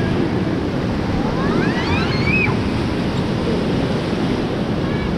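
Fast-flowing Beas River water rushing and splashing around a raft in rapids, with wind noise on the microphone.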